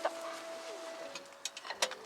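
Background music of slow held notes that change pitch about every second, with a few sharp clicks near the end.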